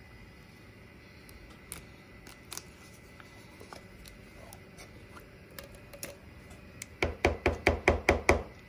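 Rubber spatula working cream of chicken soup out of a metal soup can: a few faint knocks, then, from about two seconds before the end, a quick run of loud scraping knocks against the can, about seven a second.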